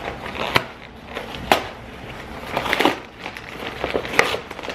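A Priority Mail mailer envelope being torn open by hand: two sharp snaps in the first second and a half, then bursts of crinkling and rustling as the package is pulled apart.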